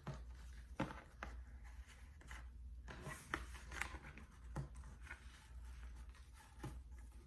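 Scattered rustles and light clicks of a ribbon being worked off a gift-wrapped box, over a low steady hum.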